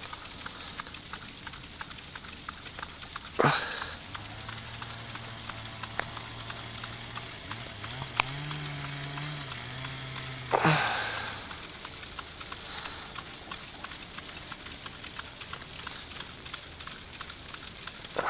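Orchard frost-control system running: a steady spraying hiss with fine pattering like water droplets, with two louder rushing swells, one a few seconds in and one about halfway. A low droning hum runs underneath.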